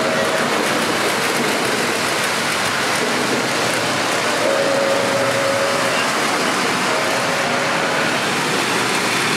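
Model trains running on the layout track: a steady rolling, whirring noise mixed with the general hum of a busy exhibit room.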